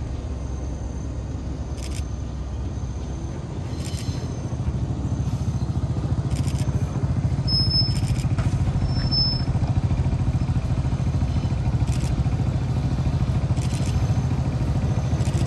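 Diesel locomotive engine of an approaching train, a low pulsing rumble that grows louder from about four seconds in and then holds steady.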